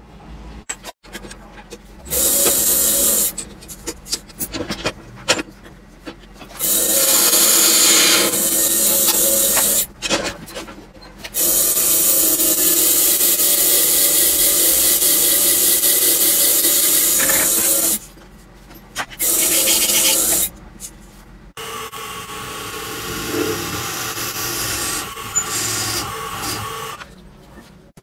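Small lathe boring into and turning a piece of red hardwood: a harsh cutting noise that starts and stops several times, the longest run about seven seconds in the middle.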